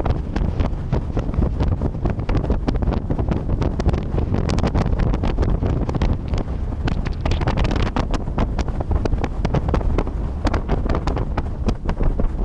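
Wind buffeting the microphone on a moving boat: a heavy, steady low rumble with many short crackles through it.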